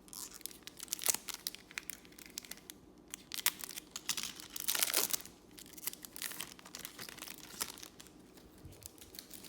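Trading cards and a foil pack wrapper being handled, with crinkling, rustling and sharp clicks throughout and a longer, louder crinkling rasp about five seconds in.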